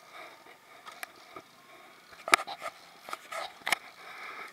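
Scattered light clicks and knocks from a conventional fishing reel and rod being worked as a hooked fish is cranked in, the sharpest about two and a half and three and a half seconds in.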